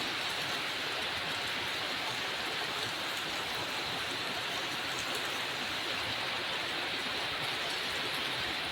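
Heavy rain falling in a steady, even hiss, with a few faint drop ticks.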